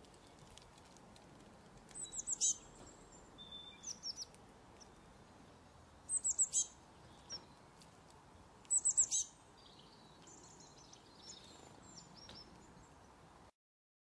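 Small songbirds calling: three short bursts of rapid, high, falling notes, about 2, 6 and 9 seconds in, with softer, scattered high calls between them over a faint steady hiss.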